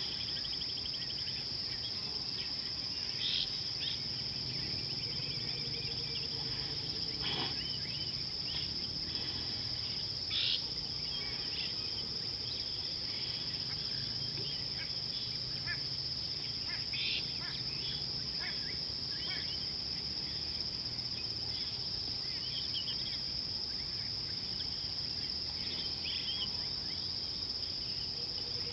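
A constant high-pitched insect trill from the bush. Short bird calls are scattered over it every few seconds.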